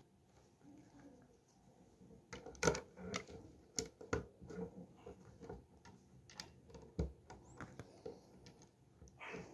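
Plastic Lego bricks being pressed and snapped together by hand: irregular small clicks and taps, sparse for the first two seconds and then frequent.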